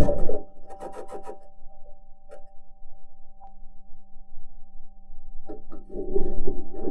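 Perseverance rover driving on Mars: its metal wheels clank and scrape over rock in rough bursts, briefly about a second in and again for the last second and a half. Under them runs a steady high whine.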